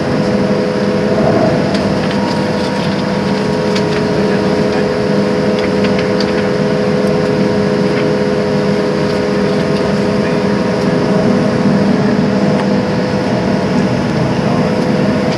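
Boeing 737-700 cabin noise while taxiing: the CFM56-7B jet engines at idle with cabin air, a steady drone with a few held tones.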